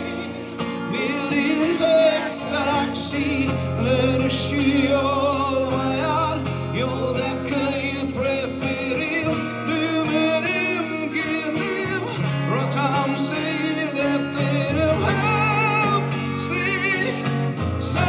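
Live music: an acoustic guitar playing, with a man singing over it.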